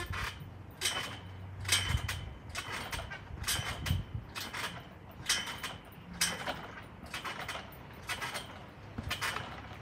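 Trampoline springs and frame creaking and squeaking with each bounce, in a steady rhythm of a little under one a second.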